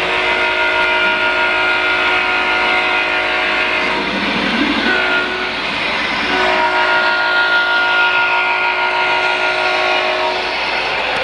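HO scale Union Pacific GE Dash 9 model locomotive's sound system sounding a multi-chime air horn in two long blasts, one held until about four seconds in and another from about six and a half to ten and a half seconds in, with a short pause between them. Diesel engine and running noise continue underneath.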